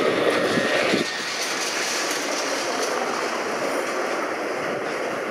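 Vintage Lisbon tram on route 28, an old car rebuilt with new trucks and electrical equipment, running on its street rails. It is loudest for about the first second as it passes close, then runs on more quietly.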